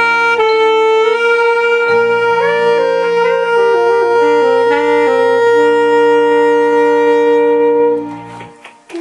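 Background music: a saxophone playing a slow melody with long held notes over steady backing chords, stopping near the end.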